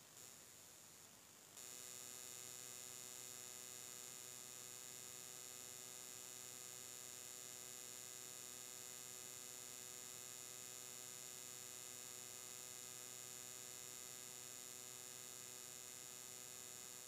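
Faint steady electrical hum with a thin high whine, starting abruptly about a second and a half in and holding unchanged.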